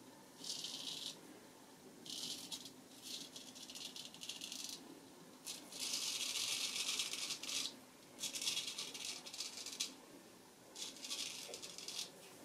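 Straight razor scraping through several days' stubble under shaving lather, in about six separate strokes. The longest and loudest stroke, about two seconds, comes about halfway.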